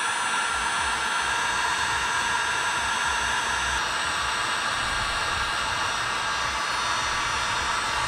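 Heat gun running steadily, blowing hot air onto a solder-and-seal butt connector to melt its solder and shrink its sleeve over a spliced horn wire.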